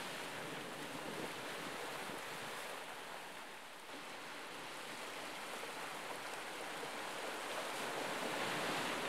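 Sea waves washing against shoreline rocks, a steady rushing noise that dips slightly a little before halfway and then slowly swells.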